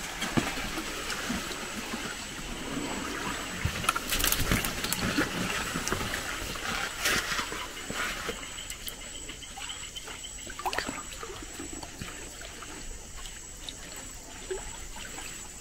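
Light water trickling and small splashes as a frog lure is twitched across the swamp surface on a bamboo pole's line, with a few sharp ticks now and then.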